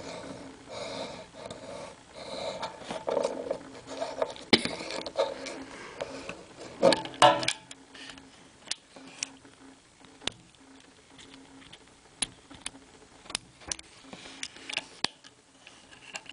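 Small plastic clicks and snaps from a Bakugan toy ball being handled and its hinged parts opened out on a card. Rubbing and handling noise runs through the first half, with a loud click about four seconds in. In the second half there are only sparse single sharp clicks.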